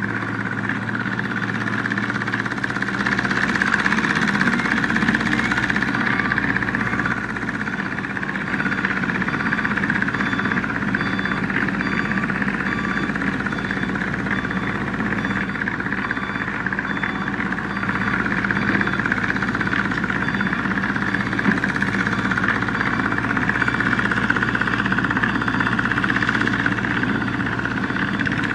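Komatsu wheeled excavator's diesel engine running steadily while it works, swelling slightly in loudness now and then. A faint high tone repeats about midway through.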